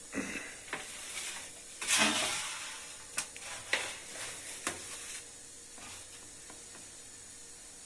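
Kitchen handling sounds: a string of clicks and short scraping rustles of utensils and cookware, loudest about two seconds in, fading to a faint steady hiss for the last few seconds.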